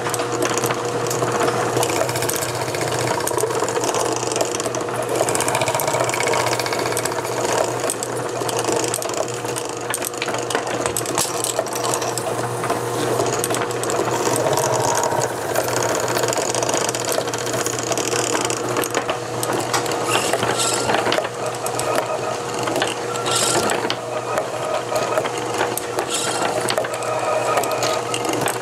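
Small lathe running with a steady hum while a hand-held cutting tool scrapes against a spinning fountain pen part, a dense, continuous cutting noise as the part is brought to its final dimensions.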